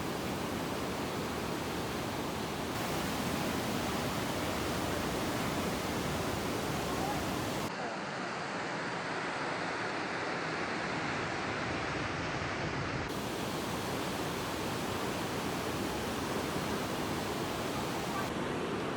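Steady rush of ocean surf washing on the beach. The sound shifts abruptly a few times, at cuts between clips.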